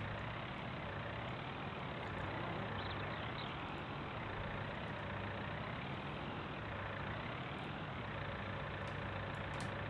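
Farm tractor engine running steadily while working a front-loader grapple, with a faint high whine that slowly rises and falls.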